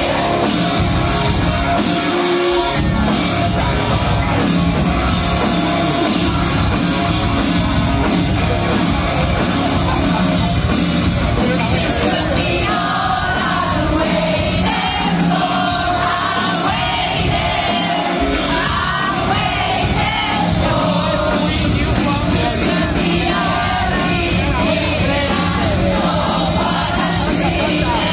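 Pop-punk band playing live at full volume: electric guitars, bass, drums and a lead singer, with the crowd singing along, heard from within the audience.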